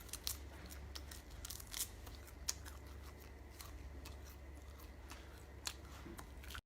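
Faint, scattered crisp crunches and clicks of a deep-fried centipede being bitten and chewed, over a steady low hum.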